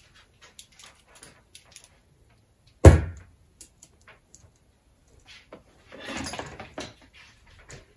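A reel of solder wire is set down on a wooden worktop with a single loud thud about three seconds in. Light clicks follow, then a short rattling rustle as solder wire is pulled off the reel.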